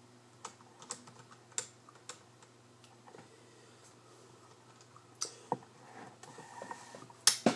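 Sparse key clicks on a Compaq Armada M300 laptop keyboard, a few separate presses spread out rather than steady typing, with one sharper click near the end.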